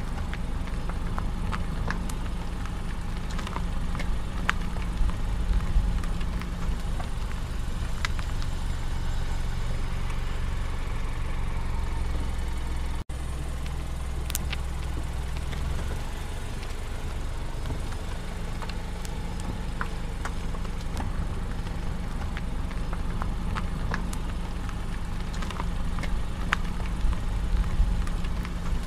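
Car engine hum and road noise heard inside a moving car, with low steady tones that shift a few times as it speeds up, and scattered light clicks and rattles. The sound cuts out for an instant about halfway through.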